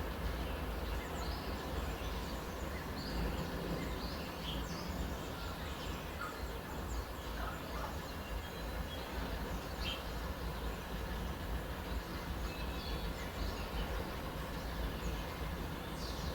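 Birds chirping on and off, short high calls scattered through, over a steady low rumble.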